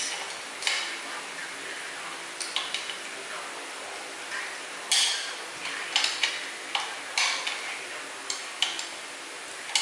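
Screwdriver and screws clicking and scraping against the metal hub of a ceiling fan during blade fitting, a dozen or so sharp irregular clicks and scrapes over a faint steady hum.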